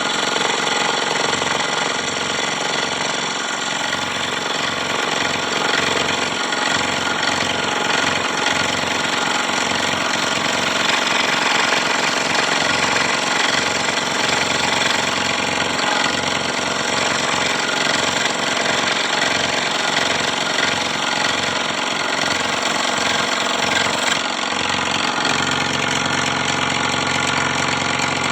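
Electric scroll saw running steadily, its blade stroking rapidly up and down as it cuts a wooden piece.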